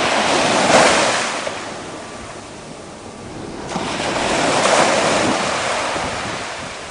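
Ocean surf breaking on the beach, in two swells: one about a second in and another near five seconds in.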